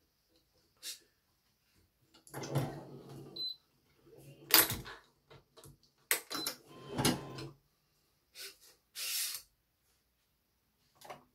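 Hand work on a badminton racket being strung with Yonex BG80 string: scattered clicks and knocks, one of them loud and sharp, and two rasping, buzzing sounds of about a second each, with a short hiss near the end.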